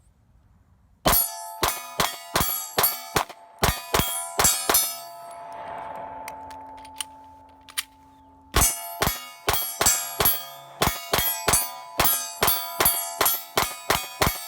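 Glock 26 9mm pistol firing a string of about ten shots, each hit making a steel target ring. After a pause of a few seconds with a couple of small clicks, which fits the planned magazine change, faster fire starts again at about three shots a second with the steel ringing on every hit.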